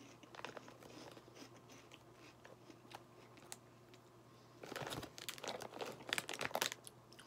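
Faint crunchy chewing of crispy snack rings, then, a little past halfway, loud crinkling of the plastic snack bag as a hand reaches into it.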